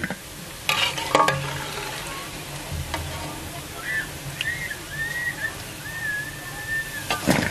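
Hot oil sizzling steadily in a frying pan (kadai) from deep-frying shakar para dough pieces, with a few sharp clinks about a second in and a louder knock near the end. A thin, wavering high-pitched tone comes and goes in the background from about halfway through.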